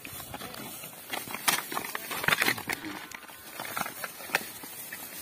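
Two bulls fighting head to head in dry grass: straw crackling and rustling under their shoving hooves, with several sharp knocks, the loudest between about one and a half and two and a half seconds in.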